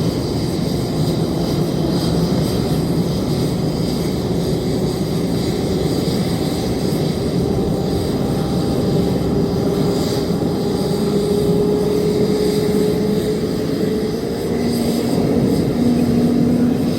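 Airbus A330-900's Rolls-Royce Trent 7000 turbofan engines running at taxi power: a steady rush with a faint hum that drifts slightly higher in pitch.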